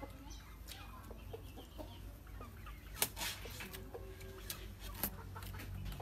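Chickens clucking with short scattered calls, over a spoon clinking and scraping on a ceramic plate; the loudest sound is a sharp clink about halfway through.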